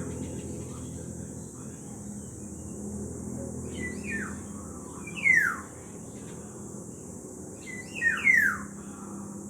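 Black-naped oriole calls: downward-sliding whistled calls, one about four seconds in, a louder one just after five seconds, and a close pair near the end, over a faint steady hum.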